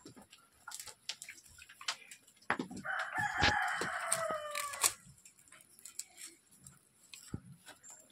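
A rooster crowing once, a single call of about two and a half seconds that begins a couple of seconds in and falls a little in pitch at the end, with scattered light clicks and knocks around it.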